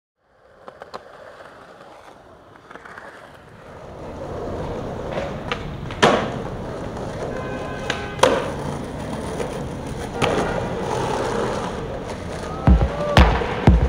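Skateboard wheels rolling over concrete paving, with loud board impacts about six and eight seconds in. Music with a heavy bass beat comes in near the end.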